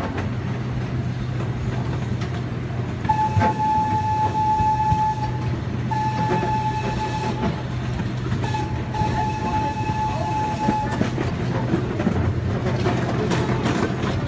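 Small zoo train running along its track with a steady low engine hum and wheel noise, its horn sounding three held blasts about a second or two each, starting a few seconds in.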